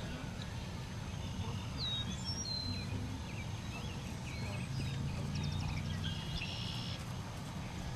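Small birds chirping and whistling on and off, with a short rapid trill near the end, over a steady low outdoor rumble.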